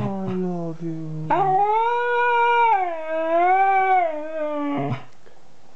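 Siberian husky howling: a short howl, then a long one of about three and a half seconds whose pitch wavers up and down, ending about five seconds in.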